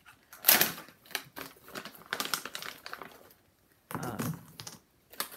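Irregular clicks, taps and rustling from hands handling small cardboard boxes and a crinkly bag of foil-wrapped chocolate coins on a cutting mat, with a louder rustle about half a second in and a brief pause near the middle.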